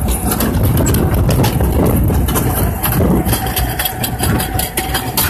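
Log-flume lift-hill conveyor belt carrying the boat up the incline: a steady low mechanical rumble with rapid, irregular clicking and clatter. A faint steady hum joins about halfway through.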